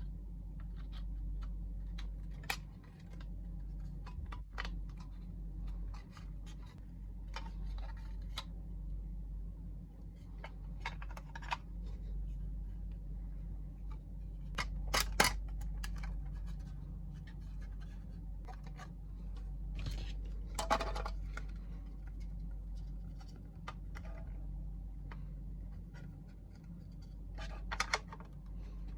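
Hands unpacking a boxed diecast diorama kit: scattered sharp clicks and taps and short scratchy rustles of packaging, the sharpest a pair of clicks about halfway through, over a steady low hum.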